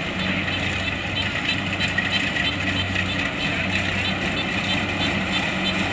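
Kubota DC-70 Plus combine harvester running steadily: an even engine hum with a fast, light rhythmic ticking from the machinery above it.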